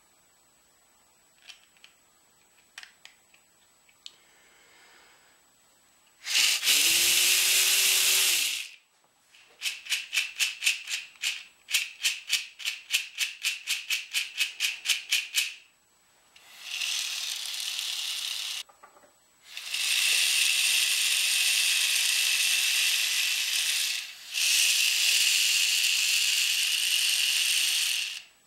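Small 3D-printed PLA air motor driven by air blown in through a drinking straw: several loud bursts of rushing air. In one stretch in the middle it rattles at about five clicks a second as the rotor turns. Faint clicks of the plastic parts being handled come first.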